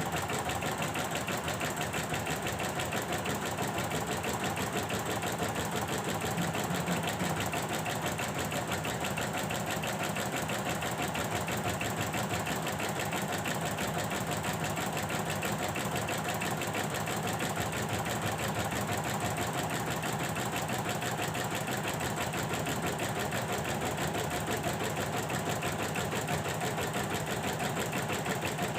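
Computerized embroidery machine running a test stitch-out, its needle bar stitching at a fast, even rhythm.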